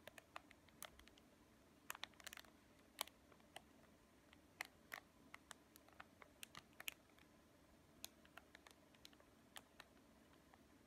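Thin plastic bread wrapper crinkling faintly under the fingers as the package is held and shifted: scattered small crackles and clicks, with a quick cluster about two seconds in.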